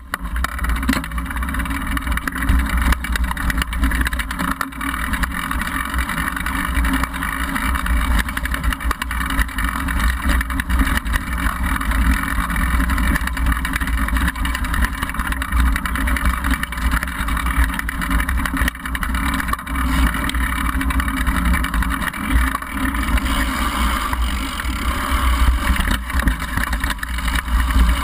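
Downhill mountain bike riding over a rocky dirt trail, heard from a GoPro mounted on the bike: a steady low wind rumble on the microphone with constant rattling and clatter of the bike and tyres over stones and gravel.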